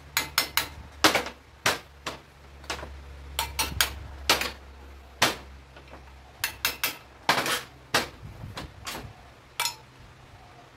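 Light hammer taps on the lower steering-head bearing race of a motorcycle's triple clamp, driving the race off a little at a time. About twenty sharp metallic taps come at an uneven pace, often in quick pairs or threes, working evenly around the race.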